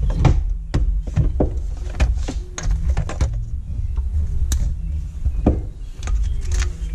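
Hands working on wiring in a jet ski engine bay: a run of irregular plastic clicks and knocks as zip ties and connectors are handled, over a steady low hum.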